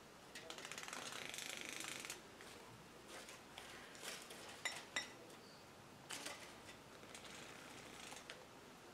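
Faint rustling and light clicks of artificial flowers being handled and set into a metal mesh tray. A crinkly rustle lasts about two seconds at the start, two sharp clicks come about halfway through, and short rustles follow.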